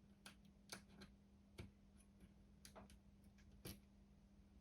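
Faint, irregular light clicks and taps, about eight in a few seconds, against near silence.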